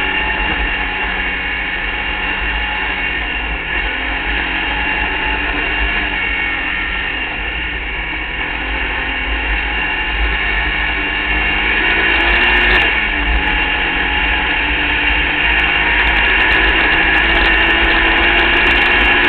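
Open-wheel hill climb race car's engine running under load at speed, heard from onboard, with a low rumble underneath. It gets a little louder about two-thirds of the way through.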